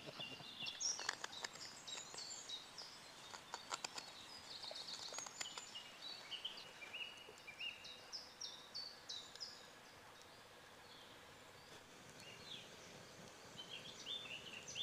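Faint woodland birdsong: several small birds chirping and trilling, thinning out after about ten seconds, with a few sharp clicks in the first half.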